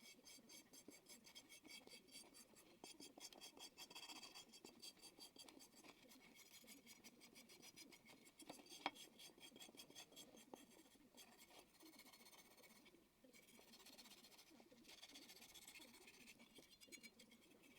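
Faint, quick scratching strokes, several a second, of hand scrubbing or scraping on a part, with a short break about thirteen seconds in and a single sharp tick about nine seconds in.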